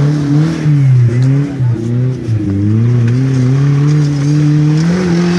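Off-road vehicle engine revving hard under load. Its pitch wavers and dips briefly about one and a half and two and a half seconds in, then holds high and fairly steady.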